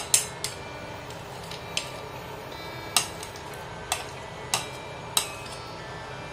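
A metal spoon tapping and scraping on a plastic plate as chopped nuts and raisins are pushed off into a pan: about seven sharp, separate clicks at uneven intervals.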